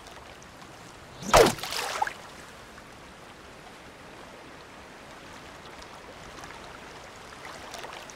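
Shallow seawater lapping and rippling over rocks, with one sharp splash about a second and a half in as a wooden spear is jabbed into the water.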